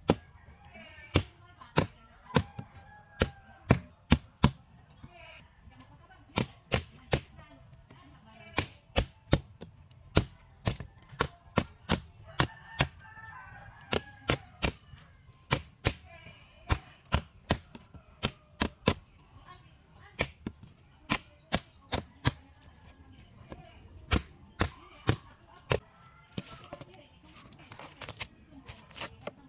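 A blade chopping at the hard skin of a calabash gourd to peel it: sharp strikes, roughly two a second in uneven runs.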